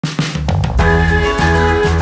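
Upbeat pop background music starting, with drum hits and then a bass line and sustained melody notes coming in under a second in.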